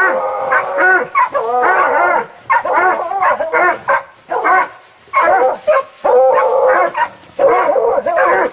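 Hunting hounds baying, in runs of repeated ringing bays broken by short pauses, as they work a scent among rocks.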